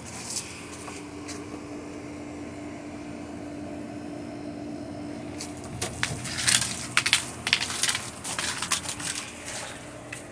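Footsteps crunching on loose gravel: a run of sharp, irregular crunches starting about six seconds in and lasting about three seconds, over a steady low hum.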